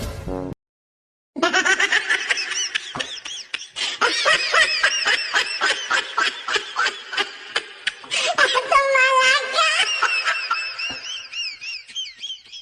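High-pitched laughter in quick repeated bursts, starting about a second and a half in after a brief silence.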